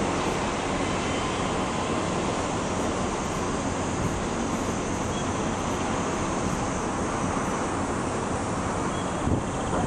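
Steady rushing noise with a low drone from a KiHa 47 diesel railcar moving off down the line, and a short low bump near the end.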